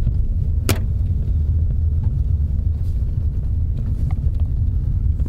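Car cabin noise while driving: a steady low engine and road rumble heard from inside the car, with a single sharp click about three quarters of a second in.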